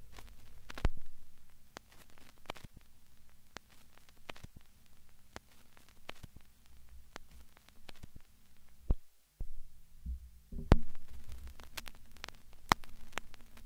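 Scattered sharp clicks and crackles over a low steady hum, with a few louder thumps, one about a second in and others near the end, and the sound dropping out briefly after about nine seconds.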